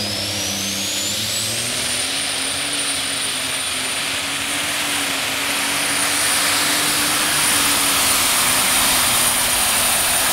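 Super/pro stock pulling tractor's turbocharged engine at full throttle, dragging the weight sled under load. It is a loud, steady engine note with a high turbo whine that rises over the first two seconds, then holds steady.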